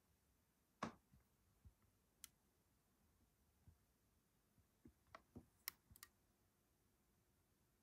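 Near silence broken by a few faint, short clicks and taps, the loudest about a second in and a small cluster of them around five to six seconds in.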